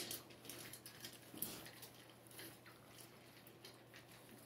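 Six-week-old boxer puppies eating dry kibble from steel bowls: faint, irregular crunching and clicking, with one sharper click right at the start.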